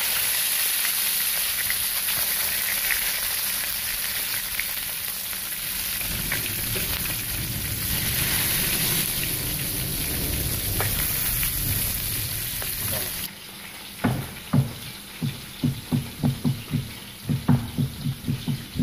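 Crumb-coated kissing gourami (cá mùi) deep-frying in hot oil: a steady crackling sizzle. About thirteen seconds in it cuts off abruptly and a run of quick thumps follows, two or three a second.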